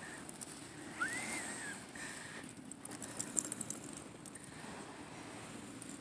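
Beach ambience while walking on a shelly shore: faint steady surf with light crunching steps, a flurry of clicks about three seconds in, and a short high call that rises and falls about a second in.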